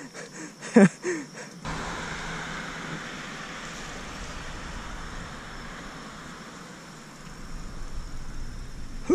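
Steady rushing noise of a bicycle ride on wet pavement, tyre hiss and wind on the microphone, easing off over several seconds. A short voice sound comes about a second in, and low wind rumble near the end.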